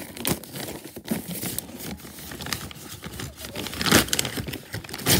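Paper gift wrapping being torn and crumpled as a box is unwrapped: a run of irregular rustles and rips, with louder tears about four seconds in and again near the end.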